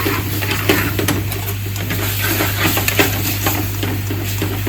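A metal utensil stirring and scraping in a pan, with scattered sharp clinks and knocks against the metal, over a steady low hum.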